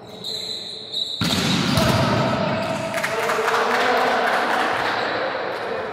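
A volleyball being struck and bouncing on a gym floor, with players' voices. The sound gets loud suddenly about a second in and stays busy before easing near the end.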